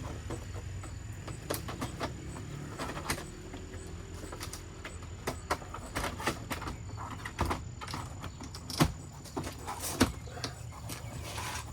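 Scattered clicks and knocks of a soffit panel being handled and pushed into place, two louder knocks near the end, over a steady low rumble.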